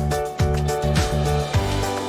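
Background music with a steady beat: held instrumental notes over a thumping bass drum, just under two beats a second.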